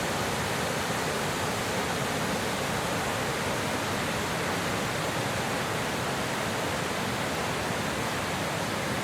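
Steady rush of a small woodland waterfall, the brook pouring over the falls.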